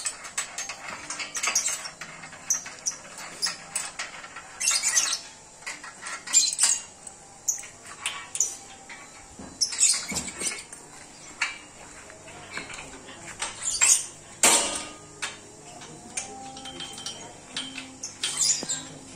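Irregular metallic clinks and clanks of hand tools and steel parts being handled while a mechanical drilling rig is dismantled: spanners on bolts, the steel frame and its drive chain knocking.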